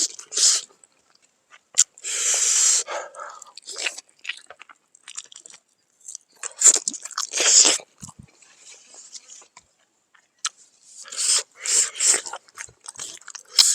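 A person chewing and biting into pork, in irregular bursts with short pauses between.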